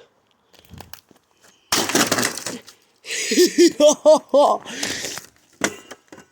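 Dyson vacuum cleaners being smashed with thrown junk: a crash about two seconds in, then more crashing and breaking with a pitched vocal sound mixed in, and a sharp knock near the end.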